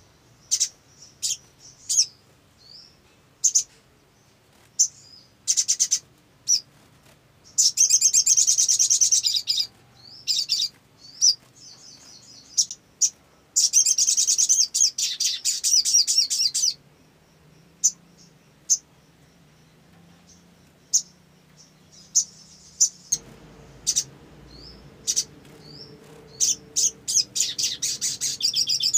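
Olive-backed sunbird calling and singing: scattered sharp, high chirps, broken by two fast twittering song bursts about 8 and 14 seconds in, and a quickening run of notes near the end.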